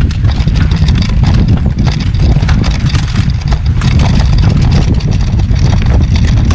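Heavy wind rumble on the microphone of an action camera riding along on a moving mountain bike, with many small rattles and clicks from the bike and its tyres on a rough dirt path.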